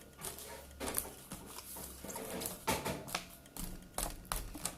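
Slime being stirred in a bowl with a utensil: irregular clicks and taps of the utensil against the bowl as the activator is mixed in.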